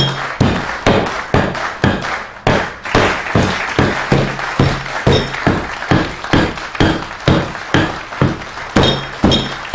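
A hammer repeatedly smashing an ear of corn: a fast, steady run of blows, about three a second.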